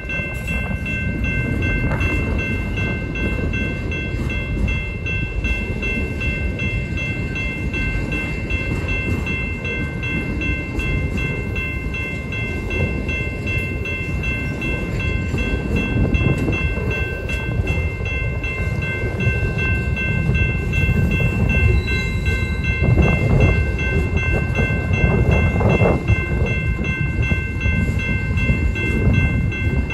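Autorack cars of a long freight train rolling past: a steady rumble and rattle of wheels on the rails, growing a little louder in the second half, with a steady high ringing tone throughout.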